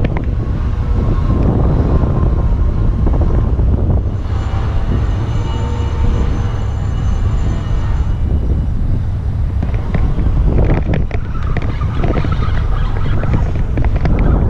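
Wind buffeting the microphone, a steady low rumble, with a few brief knocks about ten seconds in and near the end.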